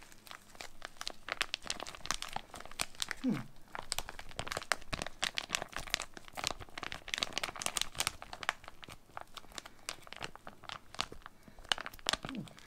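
MRE entrée pouch and its plastic packaging crinkling and tearing as it is handled and opened, a dense run of irregular crackles.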